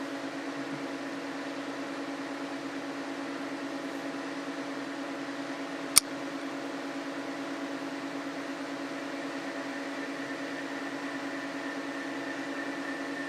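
Steady mechanical hum of a running appliance, with a single sharp click about six seconds in and a faint high tone that joins near the end.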